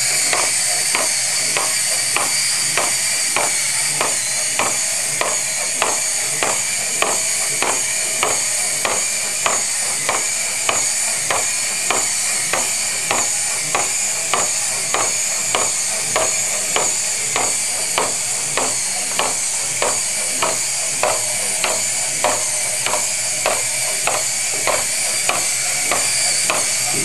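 Small quadruped robot trotting on a tabletop: its leg servos give a steady high whine and hiss, and its feet tap the table in an even rhythm of about two taps a second.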